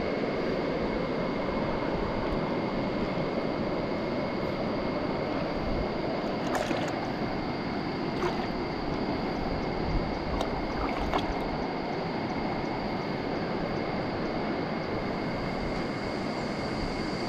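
River water flowing over rocks, a steady rush, with a couple of faint small splashes from a hooked machaca in the shallows about six to eight seconds in.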